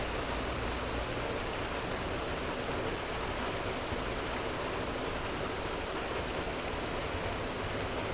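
Creek water rushing steadily, an even, unbroken noise.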